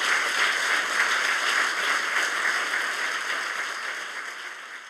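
Audience applauding steadily, the clapping fading out over the last couple of seconds.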